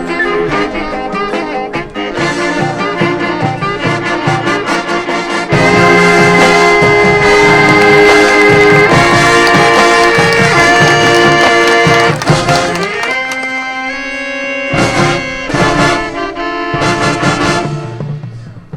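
Marching band brass and percussion playing. The full band builds into a loud, sustained brass chord, then drops to a quieter passage punctuated by sharp percussion hits near the end.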